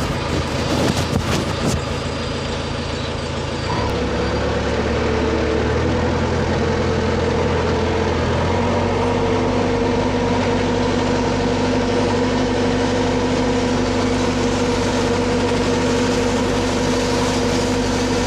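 JCB machine's diesel engine running steadily, heard from inside its cab. The engine's note shifts about four seconds in and again about eight seconds in, with a few clicks and knocks in the first couple of seconds.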